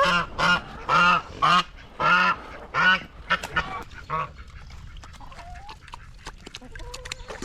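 Domestic waterfowl calling: a quick series of about six loud calls over the first three seconds, then fainter calls and scattered small clicks.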